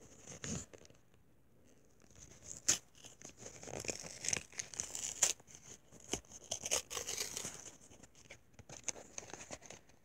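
Pokémon trading-card packaging being torn open by hand: irregular crinkling and tearing of the wrapper, with a few sharp clicks. It starts about two and a half seconds in and eases off near the end.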